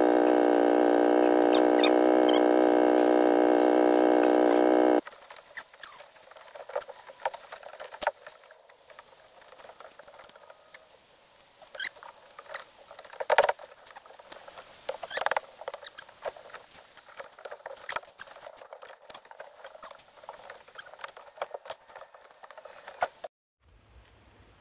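A small engine runs with a loud, steady drone and cuts off suddenly about five seconds in. After that come quieter, scattered knocks, taps and scrapes of wood being handled on the log wall, with a couple of sharper knocks in the middle.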